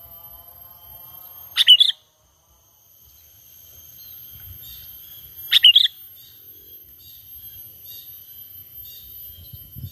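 Sooty-headed bulbul (kutilang) calling: two loud, short bubbly calls about four seconds apart, with softer repeated chirps between them and a faint steady high whine behind.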